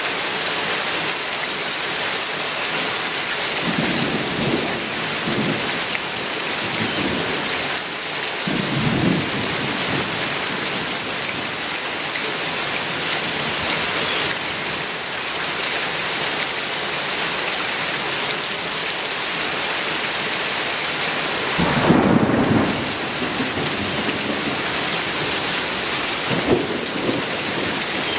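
Heavy rain pouring steadily onto trees, grass and pavement in a subtropical downpour, with several low rumbles rising out of it; the loudest comes about 22 seconds in.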